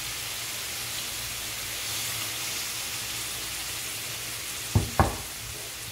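Marinated chicken pieces sizzling steadily as they shallow-fry in oil in a nonstick pan, with onion slices frying in a second pan. Near the end come two sharp knocks in quick succession.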